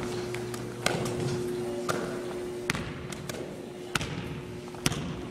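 Basketball bouncing on a wooden gym floor, five sharp bounces about a second apart, over a steady hum.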